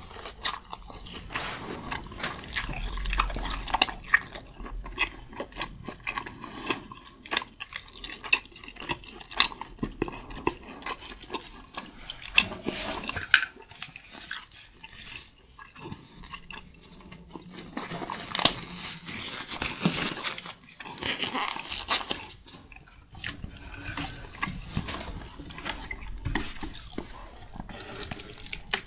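Close-miked chewing of a mouthful of medium-rare tomahawk steak: wet mouth and lip-smacking sounds with many short, sharp clicks.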